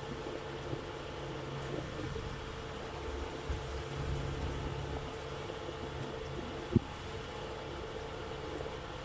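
Steady low engine hum with one sharp knock about two-thirds of the way through.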